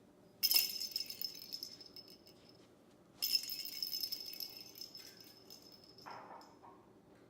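A small jingle bell jingling in two bursts about three seconds apart, each shake ringing out and fading over a couple of seconds.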